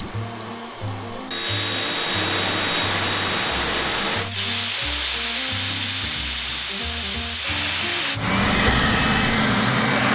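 Hissing jets from air-conditioner cleaning equipment, over background music. The hiss starts about a second in, changes about four seconds in and stops about eight seconds in.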